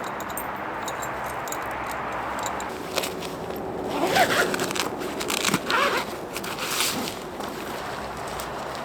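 Steady wind noise of a blizzard, with a few seconds of rustling, clicking and scraping handling sounds in the middle that include short rising zip-like sweeps.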